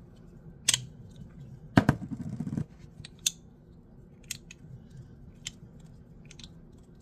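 A Micarta fidget slider clicking as its halves are snapped from one position to the other. There are single sharp clicks about once a second, and a quick clatter of several clicks just under two seconds in, which is the loudest moment.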